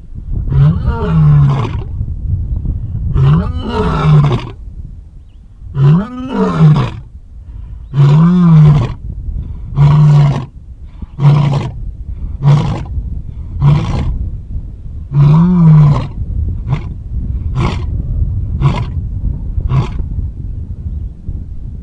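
Lion roaring bout: a few long, loud roars, then a run of shorter, quieter grunting roars that come closer together toward the end.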